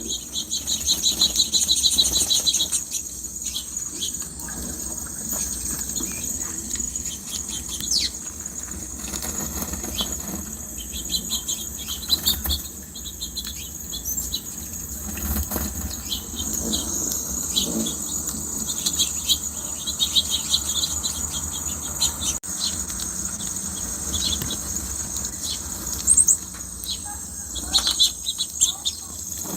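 Small birds bathing: quick wing flutters and splashes in shallow water, with bird chirps and a steady high insect drone in the background.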